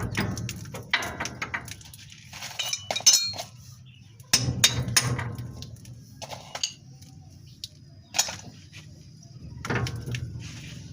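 Irregular metallic clinks and knocks of tools striking and handling metal parts, over a low steady hum.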